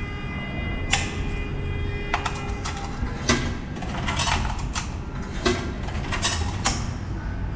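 Coins being fed into a ticket machine's coin slot: a run of sharp clinks and clatters as they drop through the mechanism, over a steady low background rumble.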